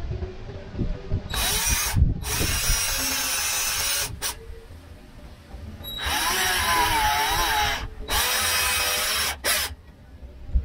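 Cordless drill boring a hole into a small plastic reflector housing, in two runs of a few seconds each, each broken by short stops. The pitch wavers in the second run as the bit bites into the plastic.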